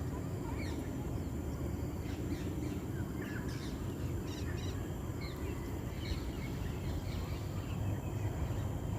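Birds chirping: many short, quick calls scattered throughout, over a steady low rumble.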